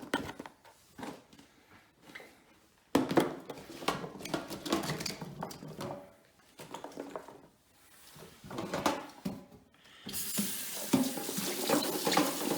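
Irregular knocks and handling noises, then about ten seconds in a kitchen tap turned on, water running steadily into the sink to wash the cut fennel.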